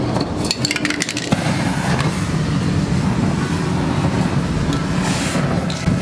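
A spray paint can is rattled briefly, then a steady roaring hiss follows as its aerosol spray is lit and burns as a flame across the wet paint.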